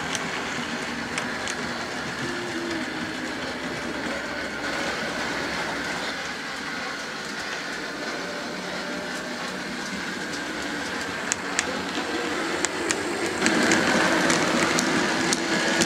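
OO gauge model trains running on the layout's track: a steady whirr of small electric motors and wheels, with scattered clicks over rail joints. It grows louder near the end as a train runs along the track close by.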